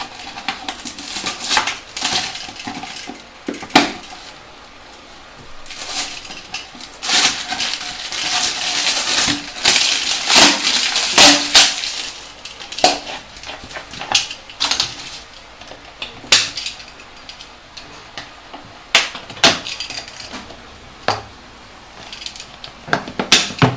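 A plastic water bottle being handled and cleaned: irregular plastic crinkling and crackling, with scattered sharp knocks and clicks.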